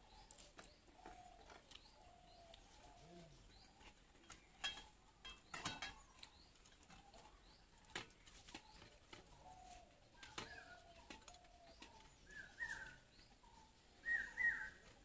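Birds chirping in short repeated calls, louder and clearer near the end, with a few sharp clicks and clatters in between.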